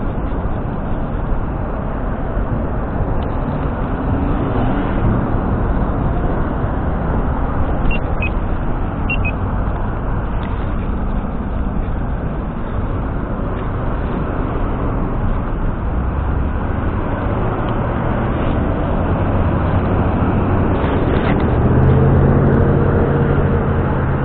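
Road traffic passing through an intersection, a steady rumble of car engines and tyres. Near the end, one vehicle's engine grows louder as it passes close by.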